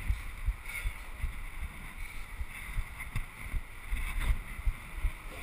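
Low, irregular rumbling and bumps on the microphone, with a few faint clicks, typical of wind buffeting and handling noise on a camera carried while climbing.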